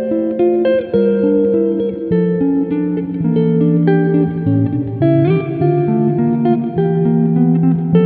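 Solo guitar playing a chord-melody piece: a picked melody over bass notes and chords, the notes left ringing into each other.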